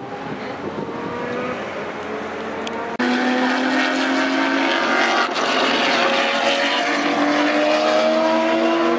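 Race car engines accelerating through the gears, each engine note climbing slowly in pitch and then dropping back, with several cars overlapping. The sound gets abruptly louder about three seconds in, and there is wind noise on the microphone.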